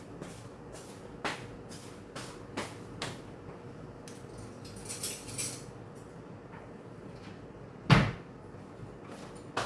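Scattered light knocks and clicks of objects being handled, a short crinkly rustle about five seconds in, and one heavy thump about eight seconds in.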